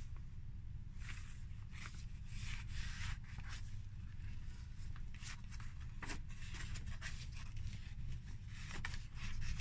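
Paper rustling and sliding by hand as journal pages are turned and stiff photo cards are lifted and shuffled, in short irregular scrapes over a low steady hum.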